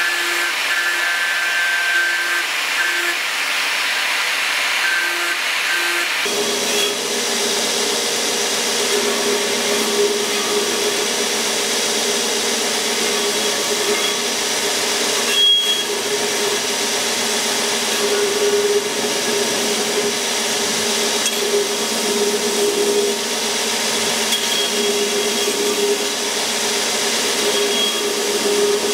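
An angle grinder with a sanding disc grinds a steel sword blade, a hissing grind with a whine that comes and goes. About six seconds in it gives way to a belt grinder running steadily with a humming drone as the blade is pressed to the belt, with one brief knock about halfway.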